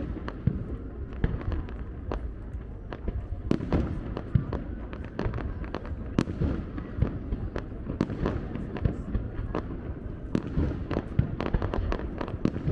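A fireworks display going off continuously: many sharp bangs and crackles in quick, irregular succession over a steady low rumble.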